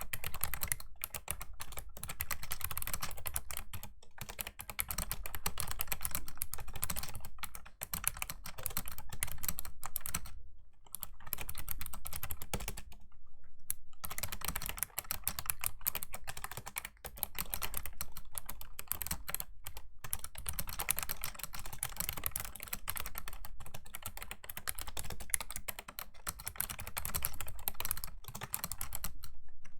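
Typing on a Razer Ornata Chroma V2 mecha-membrane keyboard: dense, fast, clicky keystrokes in runs of a few seconds, broken by short pauses, the longest about 10 and 13 seconds in.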